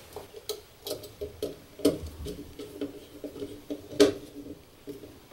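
Irregular clicks and taps of a wire and small parts being handled and fitted inside a metal electrical control cabinet, with two louder knocks about two and four seconds in.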